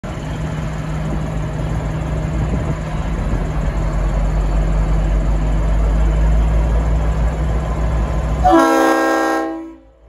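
A diesel engine rumbling steadily, growing a little louder, then one short blast of about a second from the Leslie RS5T five-chime horn on V/Line N class locomotive N470, sounding as a chord of several notes near the end, after which the sound cuts off.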